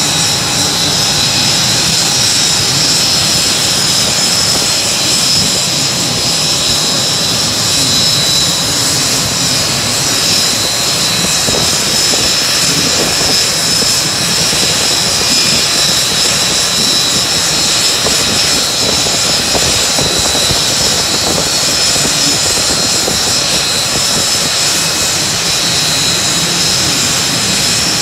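Turbine aircraft engine running steadily and loud, with a constant high-pitched whine over a broad rushing noise.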